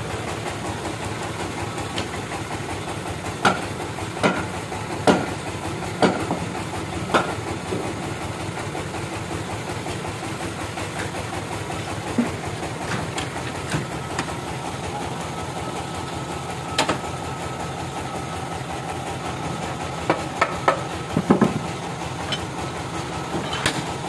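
Band sawmill machinery running steadily, with a series of sharp knocks, five in the first several seconds and a cluster near the end. A thin steady whine joins in about two-thirds of the way through.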